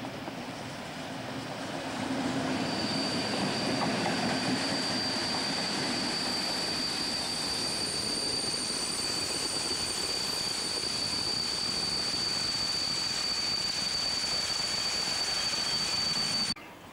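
A freight train of bogie hopper wagons rolls past behind a Class 60 diesel locomotive, with a steady high-pitched wheel squeal from the wagons on the curve starting about three seconds in. The sound cuts off suddenly near the end.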